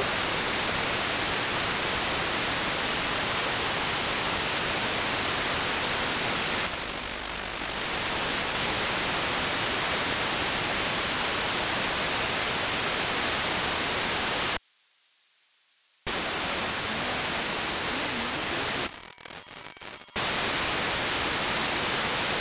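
Wideband FM hiss from an RTL-SDR software radio tuned between stations, with no signal captured. It is a steady static with a brief cut to near silence just past the middle and a ragged dip a few seconds later.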